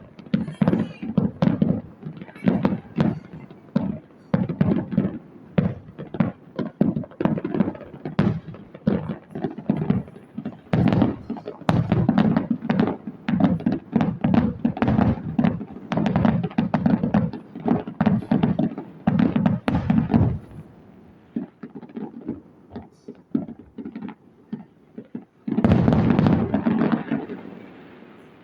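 Fireworks going off: a rapid, dense string of bangs and crackles for about twenty seconds, then a lull with scattered pops, then a loud cluster of bursts about three seconds from the end that dies away.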